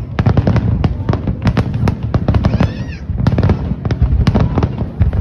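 Fireworks display: rapid, dense crackling and popping over a continuous deep booming rumble.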